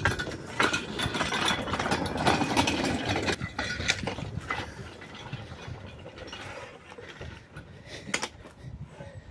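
Small steel-wheeled 15-inch gauge rail wagon rolling along the track: a dense rattling clatter for the first few seconds that then fades, with a few separate sharp knocks near the end.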